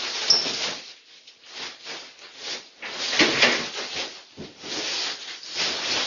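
Rustling, clattering and knocking as office items are rummaged through and stuffed into a large bag, coming in irregular bursts with a sharp click about a third of a second in. Heard through a security camera's microphone.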